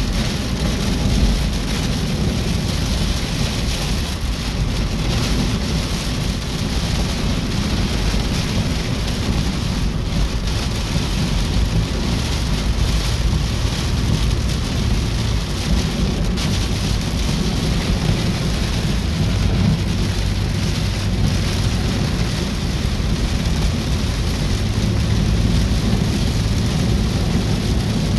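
Heavy rain pelting a moving car's roof and windshield, heard from inside the cabin as a steady loud rush over low road and engine noise.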